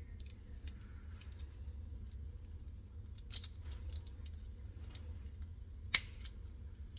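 Small metallic clicks and taps of a key working a vending machine barrel lock by hand, with a pair of louder clicks about three and a half seconds in and a sharp click near six seconds. A steady low hum runs underneath.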